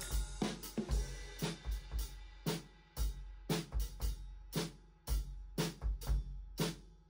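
Improvised drum kit beat: bass drum, snare and hi-hat or cymbal strikes in a steady rhythm, a few hits a second.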